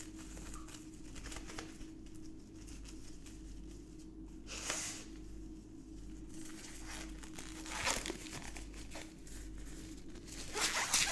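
Disposable gloves being pulled on: crinkling, rustling plastic in a few separate bursts, the loudest near the end.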